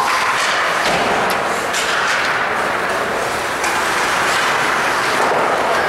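Ice hockey play in a rink: a steady wash of skates carving the ice and arena noise, with a few sharp clacks of sticks on the puck.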